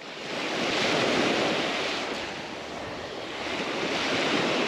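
Small Gulf of Mexico surf breaking and washing up a sand beach at the water's edge, a steady rushing that swells about a second in and again near the end as waves come in.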